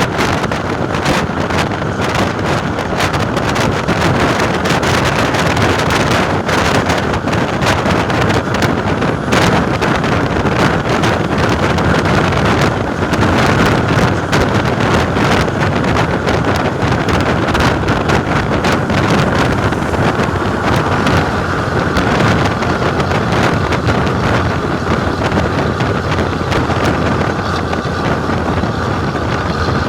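Volvo B10M bus diesel engine running with a steady, loud drone, wind buffeting the microphone throughout.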